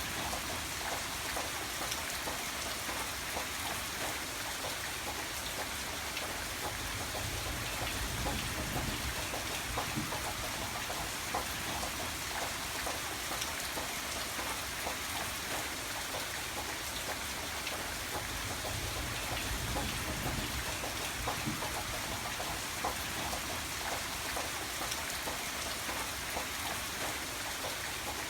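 Steady rain falling, with individual drops ticking on a surface. A low rumble swells twice, about a third of the way in and again past halfway.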